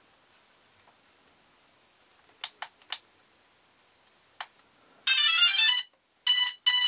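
DJI Phantom 2 quadcopter powering up: a few light clicks, then about five seconds in its motors play a quick rising startup tune followed by short beeps, the power-on self-check signal.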